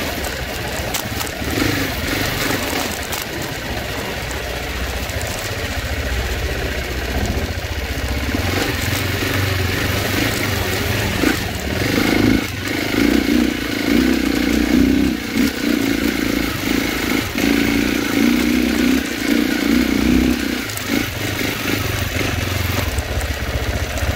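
Off-road dirt bike engine running while riding a rough trail, the throttle rising and falling. It gets louder from about halfway, with the throttle opening and closing in quick pulses on a climb.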